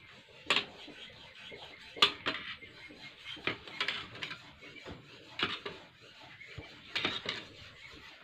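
Metal spoon clinking and scraping against a ceramic bowl while stirring and scooping a thick cream mixture, in a string of short, irregular clinks about a second or two apart.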